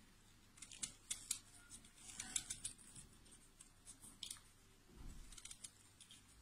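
Faint, irregular scraping and clicking of a small knife blade shaving down half an avocado pit.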